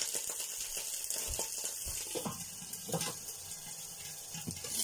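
Hot oil spattering and sizzling in a frying pan, a steady hiss with a few pops.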